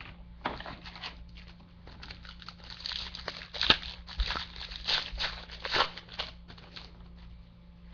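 Wrapper of a Panini Triple Play baseball card pack being torn open and crinkled by hand: an irregular run of crackles and rustles, loudest around the middle.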